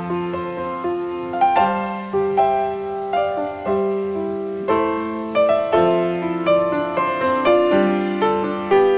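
Background piano music: a slow melody of single struck notes, each fading away.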